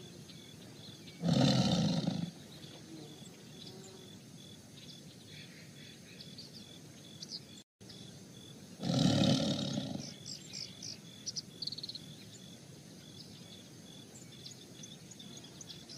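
Tigers snarling: two short growls, each about a second long, the first about a second in and the second a little past the middle, with birds chirping in the background.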